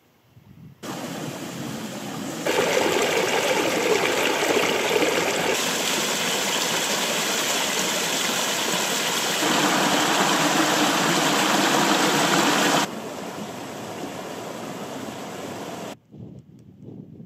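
Small mountain stream cascading over rock: steady rushing, splashing water that jumps abruptly in loudness several times, loudest in the middle. It cuts off about a second before the end.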